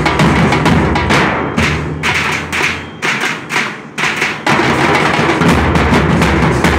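A band of Nasik dhols, large steel-shelled barrel drums, beaten together with thick sticks and thin canes in a fast, loud rhythm with heavy bass. About three seconds in, the deep bass drops out for a second and a half, leaving sparser single strokes, then the whole band comes back in.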